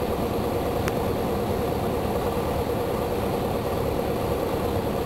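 Cockpit noise of a Beechcraft Sundowner's four-cylinder Lycoming engine and propeller, running steadily with power set for landing on short final. One faint click about a second in.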